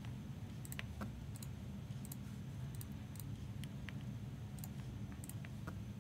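About a dozen irregular clicks of a computer mouse and keyboard, over a steady low hum.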